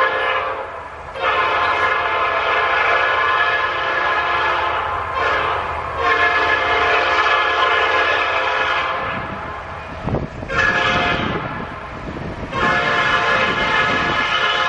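Nathan Airchime P5 five-chime air horn on an EMD SD70i locomotive, sounding a multi-note chord in a string of long held blasts, each several seconds, with short breaks between them and one brief toot about five seconds in.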